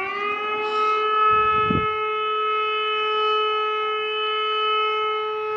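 Civil defense siren sounding a test. Its wail finishes rising in pitch within the first half second, then holds one steady tone with several overtones. A brief low rumble comes about a second and a half in.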